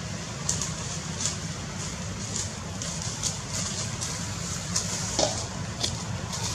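Steady low rumble with short, dry rustles every half second or so, the kind a macaque makes rummaging through dry leaf litter. A brief falling call comes about five seconds in.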